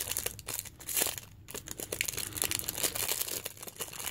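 Foil wrapper on a pack of crackers being torn and peeled open by hand: a dense, irregular crinkling and crackling of the foil, with a brief lull about a second and a half in.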